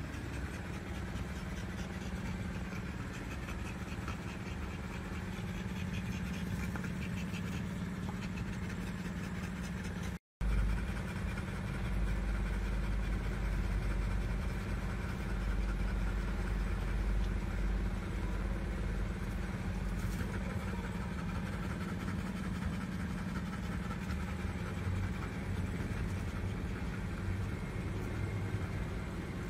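A steady low machine hum, cutting out for a moment about ten seconds in.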